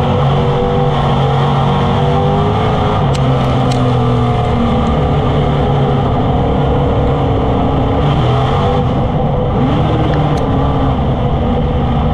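Street Stock dirt-track race car's engine running hard, heard from inside the cockpit, its pitch falling and rising as it goes round the oval.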